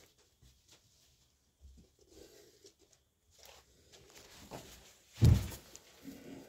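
Faint rustling and scraping of handling noise, with one loud thump a little after five seconds in.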